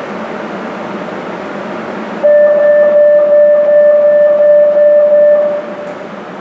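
Door-closing warning tone of a Lima Metro Series 9000 train: one steady, loud tone held for about three seconds, starting about two seconds in. It sounds over the steady hum of the train standing at the platform.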